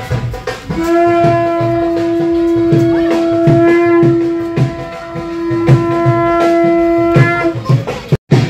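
A blown horn or pipe holds one long, steady note for about six and a half seconds, starting about a second in, over a steady drumbeat.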